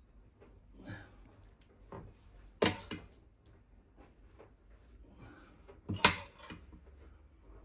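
A metal serving spoon ladling tomato sauce from a pan onto a ceramic bowl of pasta, with two sharp clinks of metal on cookware, one about two and a half seconds in and one about six seconds in, and a few softer knocks and scrapes.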